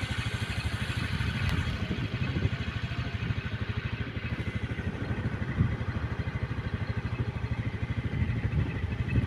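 Small motorcycle engine running steadily at low speed, with a rapid even pulsing.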